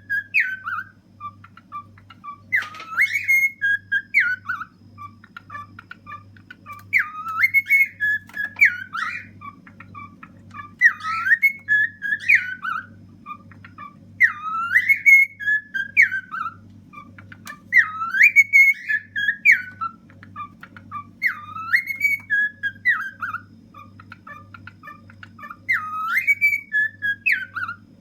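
Male cockatiel whistling its song, one short phrase of rising and falling notes repeated about every four seconds. A steady low hum runs underneath.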